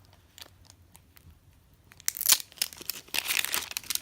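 Plastic wrapping being torn open and crinkled by hand, starting about two seconds in after a few faint clicks.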